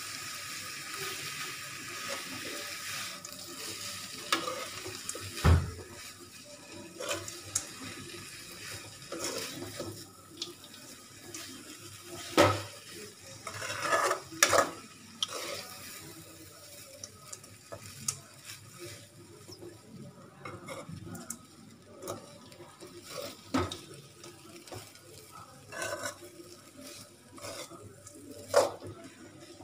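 Slotted metal spoon scraping and clinking against a metal kadai at an irregular pace as cooked ragi vermicelli is tossed and mixed with onion and lemon; a few knocks stand out over the softer scraping.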